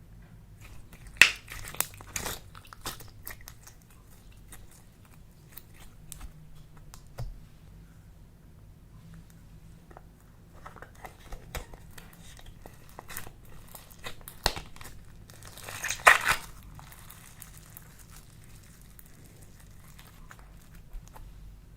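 Clay slime being handled and pressed by hand, giving scattered crackling clicks and pops. The loudest crackles come about a second in and again near the end.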